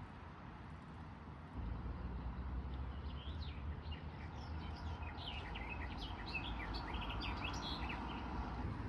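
Small birds chirping in quick, many-noted bursts over a steady low rumble of outdoor background noise. The chirping starts about three seconds in and stops just before the end.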